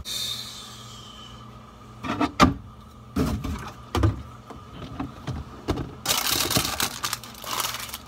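Bottles and plastic containers knocked and shuffled about on refrigerator shelves, a few separate knocks followed by about two seconds of rustling, over a steady hum.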